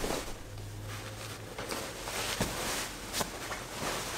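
Duvet and bedding rustling as a person shifts in bed and pulls the covers up, with a few soft taps.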